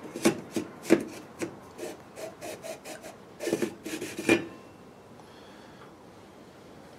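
Parts of a kerosene heater being handled during disassembly: a quick run of scrapes, rubs and clicks that stops about four and a half seconds in.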